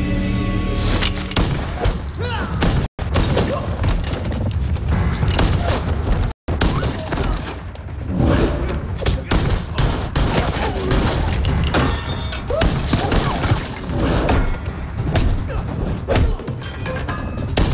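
Action-film fight soundtrack: dramatic music under rapid gunshots and heavy punch and thud sound effects. The sound cuts out completely for an instant twice, about three and six seconds in.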